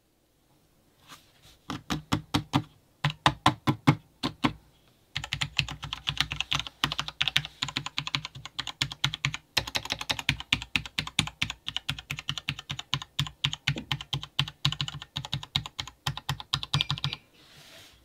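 Keys of a Blackmagic DaVinci Resolve Speed Editor editing keyboard being pressed: a run of separate clicks, a short pause, then rapid, continuous key clicking that stops near the end.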